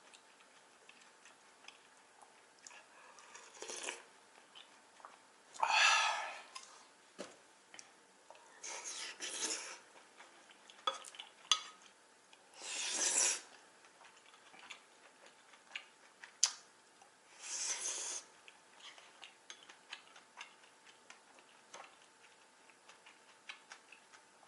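Eating noodles: utensils clicking against a bowl of jajangmyeon. Five short noisy bursts of eating sounds come every few seconds.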